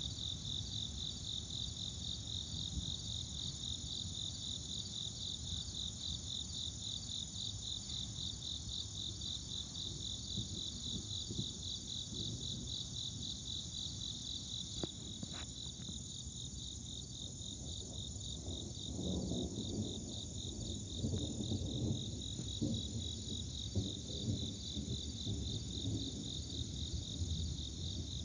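Chorus of crickets: a steady, high-pitched, evenly pulsing chirring that never lets up. Underneath runs a low rumbling noise that swells in the second half, with one sharp click about halfway through.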